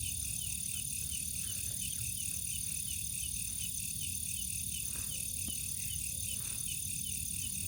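Night chorus of crickets and other insects: a steady high trilling with a short chirp repeating about three times a second, over a low rumble.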